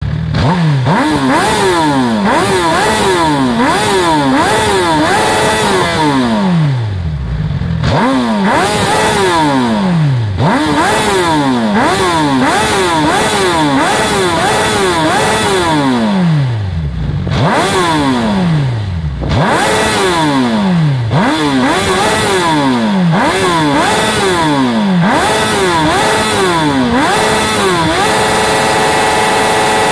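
2009 Suzuki GSX-R1000's inline-four engine free-revved over and over, each throttle blip rising sharply and falling back, about one every second or two. A couple of the revs sink slowly all the way down, and near the end it settles to a steady idle.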